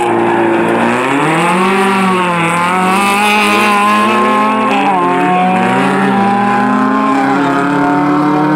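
Peugeot 205 race car's 16-valve Mi16 four-cylinder engine running hard on track. The revs rise and fall through a corner, drop sharply at gear changes about five and seven seconds in, then climb steadily.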